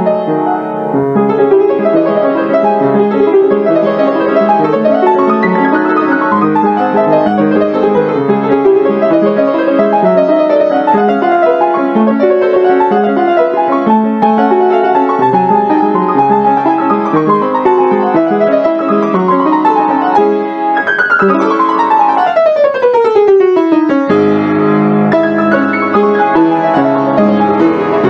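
Background piano music playing a continuous stream of notes, with a long fast run sweeping down the keyboard about three-quarters of the way through.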